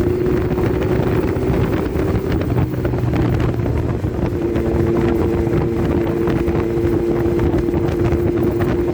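Motorcycle engine running steadily while riding, with wind noise buffeting the microphone.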